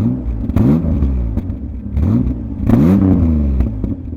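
1993 Ford Ranger engine revved up and down in short blips, about four times, its pitch rising and falling with each one. It is running smoothly after new upper and lower intake gaskets and injector O-rings cured its rough idle.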